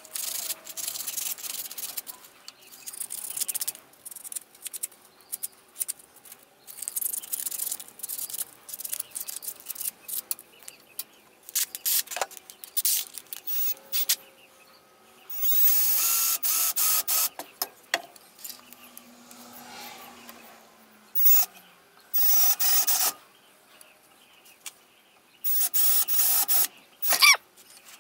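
A woodworking power tool running in several short bursts of one to two seconds, with small clicks and scrapes of handling in between.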